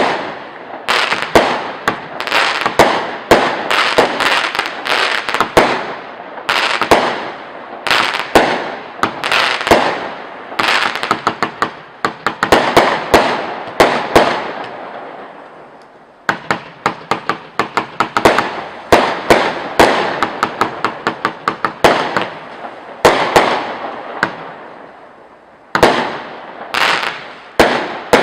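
Firework King Boombastic 90-shot cake firing, one shot after another, each bang followed by a cluster of quick small pops as the shell breaks. The barrage thins out and nearly stops about halfway through, then starts again.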